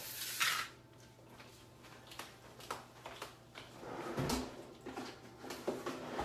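Kitchen handling noises during food preparation: a brief rustling scrape at the start, then scattered light clicks and taps and a dull knock about four seconds in.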